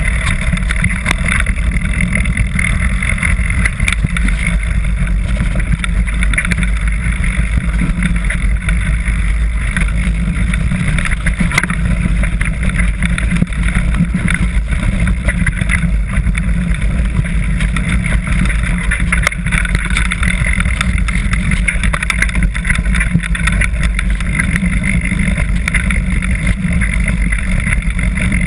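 Mountain bike descending a rough dirt singletrack at speed, heard from a handlebar camera: a steady low rumble of wind buffeting the microphone, with constant small clicks and rattles from the tyres and bike over the rough ground.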